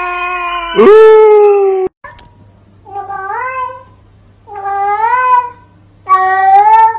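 A tabby cat's long, loud drawn-out meow that swoops up in pitch about a second in and cuts off abruptly just before two seconds. Then a cat meows three times, short meows that rise and fall in pitch about every second and a half, over a faint low hum.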